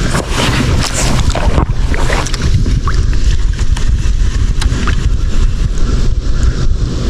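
Wind buffeting the microphone on an open kayak, a loud steady rumble with hiss, with scattered light ticks mixed in.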